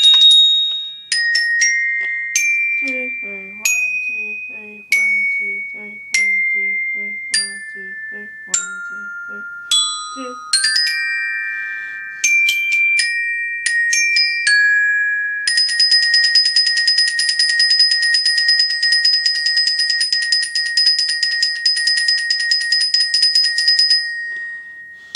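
Glockenspiel played with two mallets: a tune of single high ringing notes. About fifteen seconds in it turns into a fast roll on one note, held for about eight seconds, then a last single note near the end.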